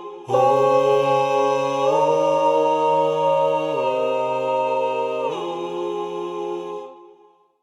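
Background music of sustained, held chords that change every second or two, fading out near the end.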